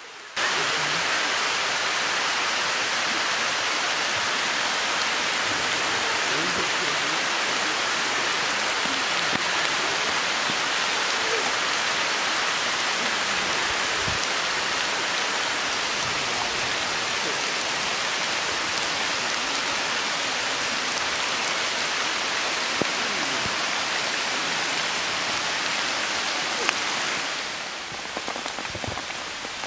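Steady rain falling, a dense even hiss that starts abruptly about half a second in and eases near the end.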